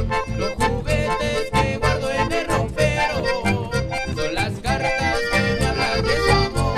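Live chamamé band playing an instrumental passage: bandoneon and button accordion carry the melody over strummed guitar and a steady, even low beat.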